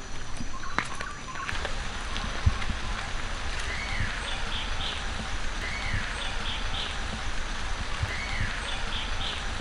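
A bird calls three times about two seconds apart, starting about four seconds in. Each call is a rising-then-falling whistle followed by three short higher notes, over a steady background hiss.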